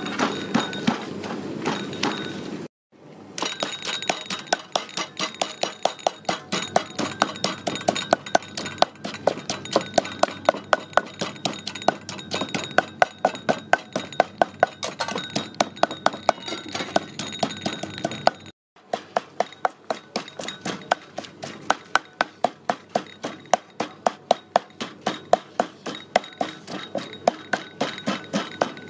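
Wooden pestle pounding garlic and red chilies in a mortar, about three sharp knocks a second, crushing them to a paste. The pounding breaks off briefly twice.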